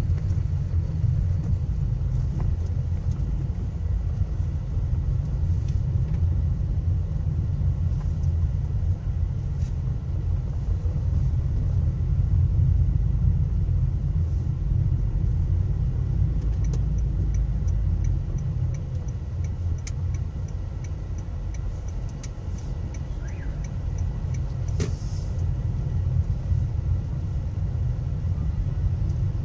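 Steady low rumble of a car's engine and tyres, heard from inside the moving vehicle. For several seconds past the middle there is a faint, even ticking, about two or three ticks a second.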